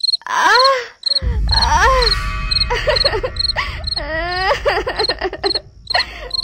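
A female voice crying and moaning in wavering, sobbing wails: the cries of a tigress lying bound and in pain. Crickets chirp steadily behind it, and a low music drone comes in about a second in.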